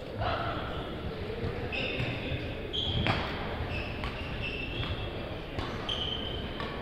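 Badminton rally on a wooden sports-hall court: sharp racket hits on the shuttlecock, the loudest about three seconds in, and short high squeaks of court shoes on the floor, over the steady background noise of a busy hall.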